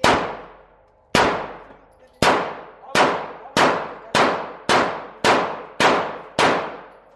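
Ten gunshots fired in an indoor shooting range, each sharp crack ringing off the range walls for a moment. The first shots come about a second apart, then speed up to roughly two a second.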